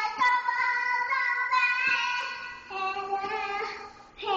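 A child singing long, high held notes without clear words, the pitch dropping to a lower note partway through.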